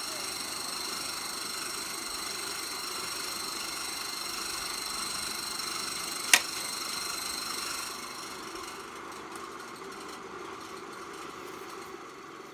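A motor or engine running steadily with a high whine over a lower hum, easing off about eight seconds in. Two sharp clicks cut through it, one at the start and one about six seconds in.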